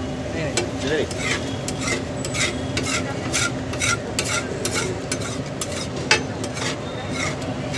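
Metal spatula scraping and slapping pav bhaji across a large flat tawa griddle, in quick repeated strokes about two to three a second, over a steady sizzle of the bhaji cooking on the hot griddle. One sharper clack of metal on the griddle about six seconds in.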